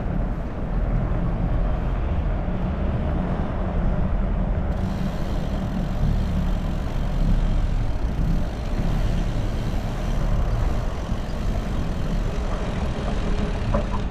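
Steady, loud low rumble of wind buffeting the microphone together with tyre and road noise from a fat bike being ridden. A few faint clicks come near the end.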